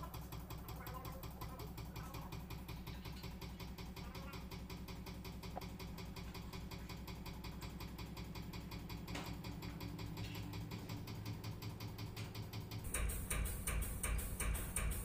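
Mercedes-Benz Actros truck's diesel engine idling steadily, heard from inside the cab. About thirteen seconds in, a louder, sharper rapid ticking takes over.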